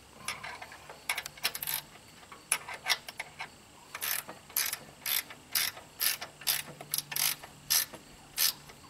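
Ratchet wrench clicking in repeated short strokes as engine mounting bolts are tightened, settling into an even pace of about two clicks a second partway through.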